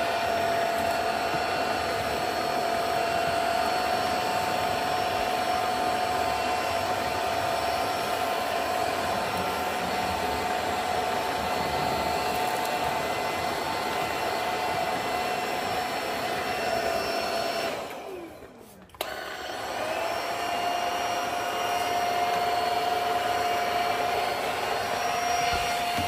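Roanow cordless stick vacuum running, a steady high whine over rushing air. About two-thirds of the way through it cuts out for a second, its pitch falling as the motor winds down, then spins back up to the same whine.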